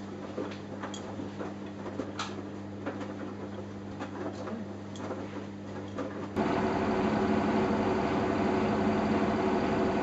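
Samsung Eco Bubble front-loading washing machine running a wash cycle: a steady motor hum with light, irregular clicks and knocks as the load tumbles in the drum. About six seconds in, it switches abruptly to a louder, steady machine run.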